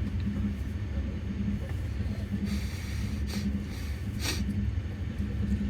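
Passenger train running, heard from inside a sleeper carriage: a steady low rumble with a hum that pulses about twice a second. Two short hissing noises come in, one about two and a half seconds in and another a little after four seconds.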